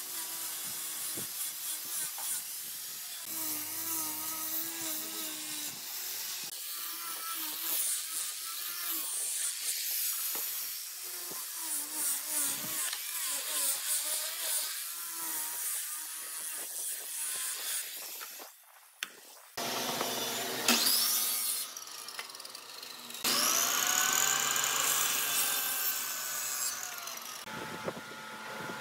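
Wood being sawn and worked with tools, the sound changing abruptly several times, with a short near-quiet gap about 18 seconds in.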